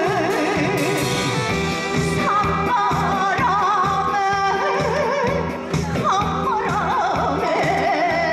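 A woman singing a Korean song into a handheld microphone over an amplified backing track with a steady beat, her voice wavering with heavy vibrato.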